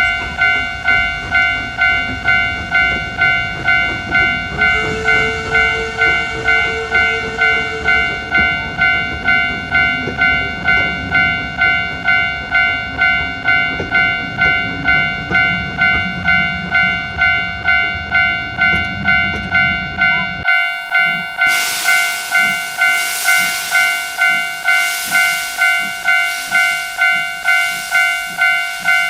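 A railway crossing alarm dings steadily, about two strikes a second, over the low rumble of a passing train. The rumble stops about two-thirds of the way through, and a steam-like hiss takes over under the continuing alarm.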